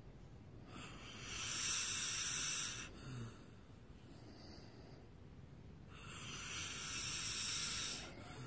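Two long, breathy hisses about two seconds each, a few seconds apart: a person's breath blowing out close to the microphone.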